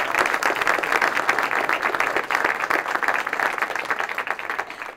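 A crowd applauding, a dense patter of many hands clapping that slowly dies down toward the end.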